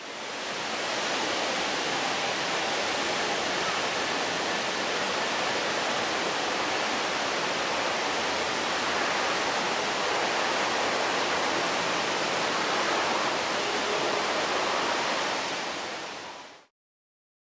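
A steady rushing noise with no clear source or rhythm, fading in at the start and fading out shortly before the end.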